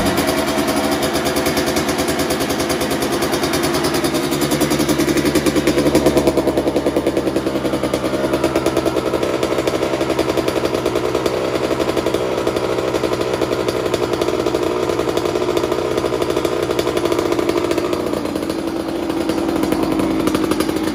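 2021 Kawasaki KX100's two-stroke single-cylinder engine running steadily, with a slight rise about six seconds in.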